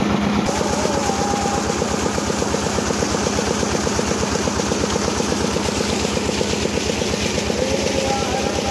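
Single-cylinder diesel engine of a shallow-machine irrigation pump running steadily at working speed, with a fast, even chug, over the rush of water gushing out of its outlet pipe.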